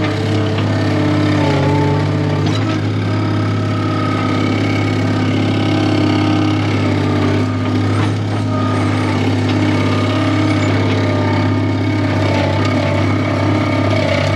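Skid steer engine running at a steady speed while the machine is tried out on a newly fitted hydraulic hose. Some higher tones shift in pitch at times over the steady engine note.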